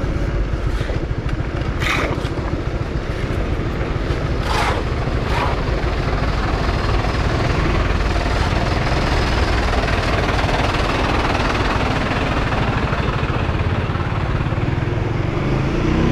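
Honda Winner 150 motorcycle's single-cylinder engine running steadily while riding, with a few short clicks in the first five seconds.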